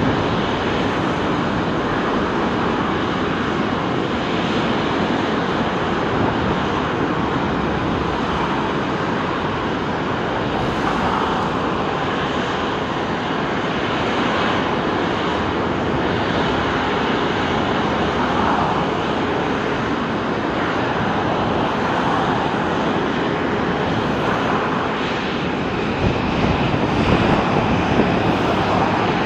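Boeing 777-300ER's GE90 jet engines running at a steady level as the airliner taxis, with a slight rise in loudness near the end.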